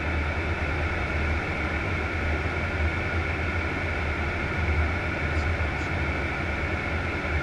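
Steady flight-deck noise of a Boeing 737-800 in flight: a constant rush of air over a strong low hum, unchanging throughout.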